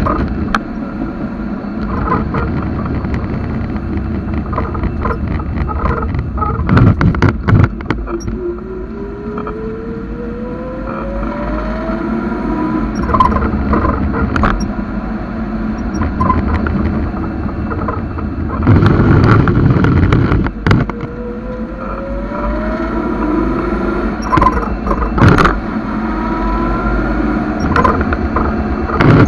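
BMW 323Ci straight-six engine and drivetrain heard from under the car while it is driven, its pitch rising three times as it pulls away, over a constant low rumble. A few loud knocks and thumps come from the underbody along the way.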